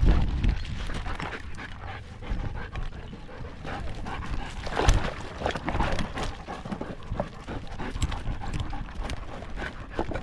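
A dog panting right at a camera strapped to its harness, with scattered clicks and scuffs as it moves over gravel and rock. A low rumble fades out in the first second.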